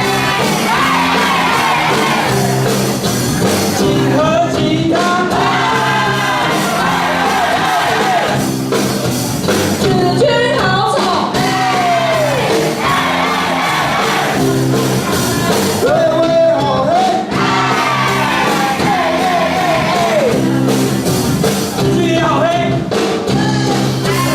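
A song playing: sung voices over a steady accompaniment, with occasional shouts, in a large hall.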